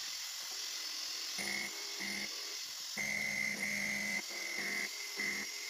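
CNC milling machine cutting into a metal block: a steady high hiss, with a pitched whine from the cutter that starts and stops several times, loudest for about a second near the middle.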